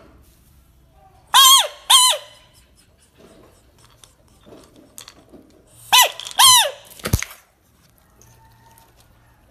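Frog giving short, high calls as it is poked by a finger: two pairs of calls, each rising then falling in pitch, followed by a dull thump about seven seconds in.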